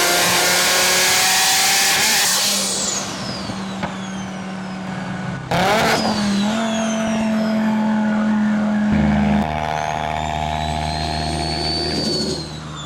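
Audi RS3's turbocharged five-cylinder engine pulling hard, then easing off as the turbo whistle falls in pitch several times. About five and a half seconds in there is a short sudden burst, and the engine then runs steadily while a faint turbo whistle rises slowly near the end.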